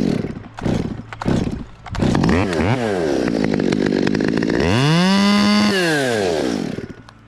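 Chainsaw pulled a few times, catching about two seconds in, then blipped so its pitch jumps up and down. It is revved up once and held high about five seconds in, then falls back and dies away near the end.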